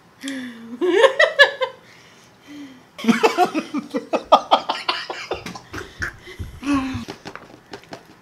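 Two people laughing hard. The laughter comes in bursts of rapid pulses, loudest from about three seconds in.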